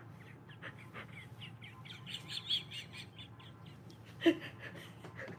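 A woman giggling in a quick run of short, high-pitched squeals, with one sharper, louder burst about four seconds in.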